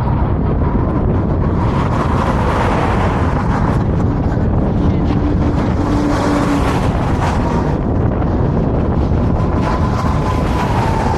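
Wind buffeting the microphone, a steady, loud low rumble, with faint tones from something in the background.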